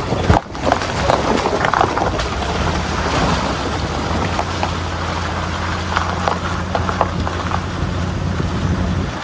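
Vehicle driving on a dirt road: a steady low engine drone with scattered knocks and rattles.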